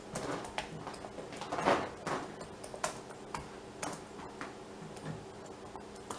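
Irregular small clicks, taps and rustles of small objects being handled close to the microphone, over a faint steady electrical hum.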